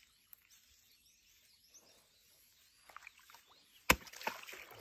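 A chunk of meat bait slapped down onto the pond's surface once, a sharp smack followed by about a second of splashing, used to call a crocodile in.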